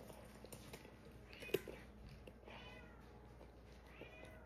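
A cat meowing softly, three short rising-and-falling calls about a second apart, with one sharp click near the first call.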